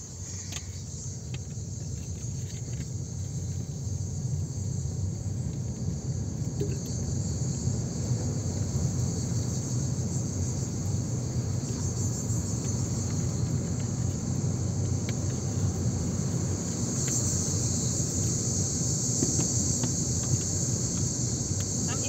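Car driving down a mountain road, heard from inside the cabin: a low, steady engine and road rumble under a steady, high-pitched chorus of insects from outside. The sound grows louder over the first several seconds.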